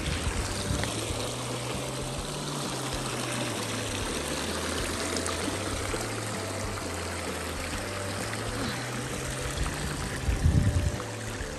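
Shallow creek water running and trickling over granite rocks, a steady rushing hiss, with soft background music under it. A brief low rumble near the end is the loudest moment.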